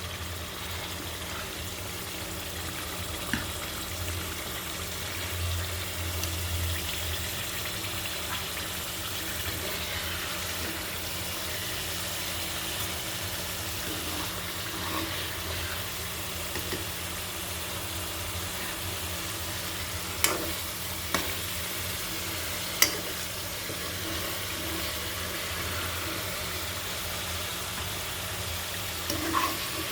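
Spiced fish curry sizzling and simmering in a pan on the stove, over a steady low hum. A few sharp clicks of a utensil against the pan, a cluster of them about two-thirds of the way in.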